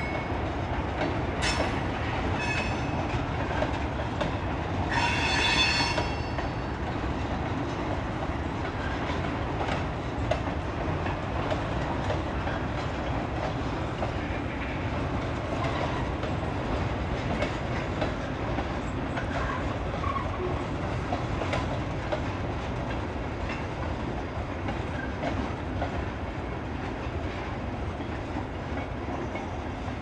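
Freight train cars rolling past steadily, wheels clacking over the rail joints. A few short high squeals come in the first seconds, the longest about five seconds in.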